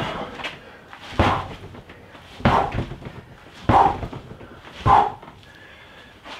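Knee strikes into a freestanding rubber training dummy held in a clinch. There are five dull thuds about a second and a quarter apart, each with a short, sharp exhaled grunt.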